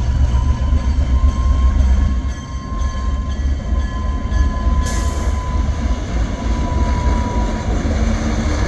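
Diesel switcher locomotive's engine rumbling as it slowly pulls a passenger train past, with a thin steady high squeal from the wheels on the curved track that fades out a little after seven seconds. A brief sharp noise about five seconds in.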